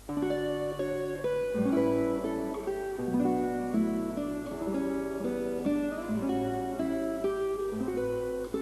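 Background music: a plucked acoustic guitar playing a melody over bass notes, starting suddenly.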